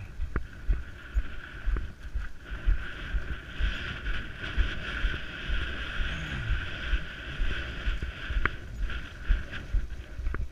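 Wind buffeting the camera microphone: an uneven low rumble with soft thumps, under a steady hiss that grows stronger in the middle and fades again near the end.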